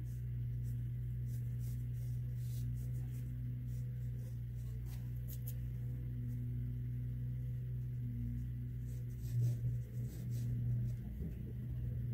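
A steady low hum, swelling briefly about nine seconds in, with faint scratching strokes of a pencil on paper.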